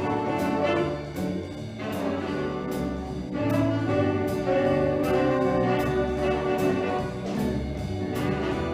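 Wind ensemble playing swing-style music, brass carrying the tune over a cymbal that keeps a steady beat of about two strikes a second.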